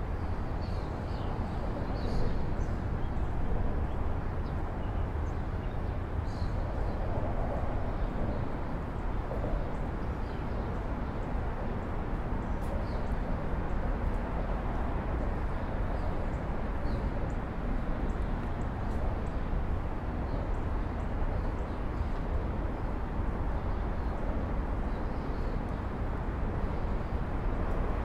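Steady low rumble of city traffic, with sparse short chirps of small birds scattered over it.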